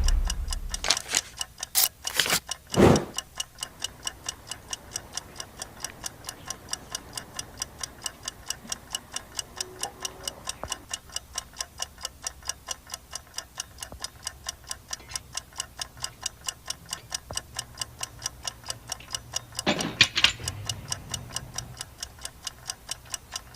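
Steady, even mechanical ticking, about three ticks a second, with a few louder knocks in the first three seconds and a louder thump with a low rumble about twenty seconds in.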